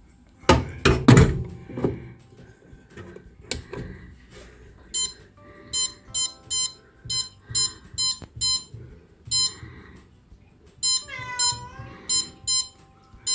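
Kenwood bread maker's touch control panel beeping at each button press: about fifteen short high beeps from about five seconds in. A few loud clunks about a second in as the bread pan is set into the machine, and a cat meows once near the end.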